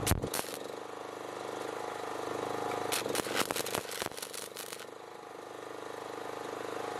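Arc welding on steel angle iron: the arc crackling and sizzling, with a run of sharper crackles around three to five seconds in.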